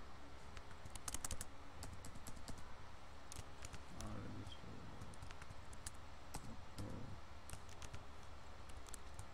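Computer keyboard being typed on: short clusters of key clicks a few times, over a steady low hum.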